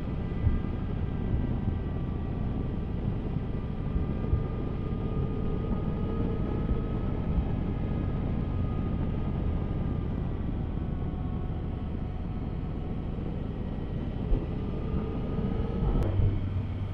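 Yamaha Tracer 900's three-cylinder engine running under way, its note rising and falling a little with speed. A sharp click about a second before the end.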